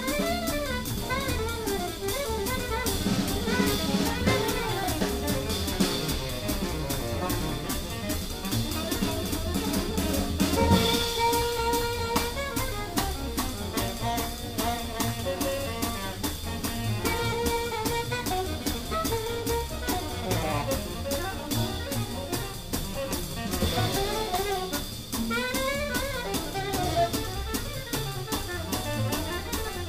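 Live jazz: a drum kit played with sticks keeping a busy cymbal-and-snare pulse throughout, under the flowing melodic lines of another instrument.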